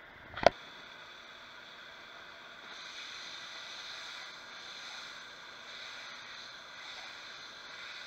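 Butter sizzling as it melts and foams in a hot frying pan, a little louder from about three seconds in. A single sharp click comes about half a second in.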